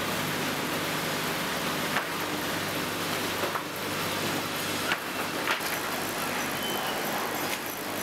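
Sawmill line machinery running steadily, with a few sharp knocks as pine boards ride over a powered spiral-roller conveyor.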